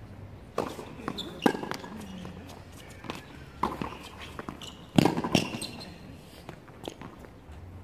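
Tennis rally on a hard court: a series of sharp racket strikes and ball bounces, irregularly spaced. The loudest strike comes about five seconds in.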